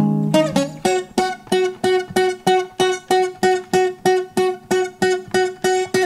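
A James acoustic guitar strummed in an even rhythm, about four strokes a second. The chords change in the first second, then one chord is repeated over and over.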